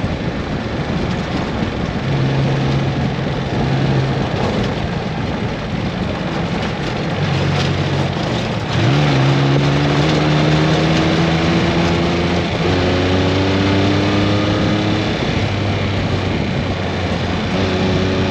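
Vehicle engine running while driving over a steady rushing noise. Its pitch climbs slowly as it speeds up, with two gear changes, about halfway through and again about two-thirds of the way through.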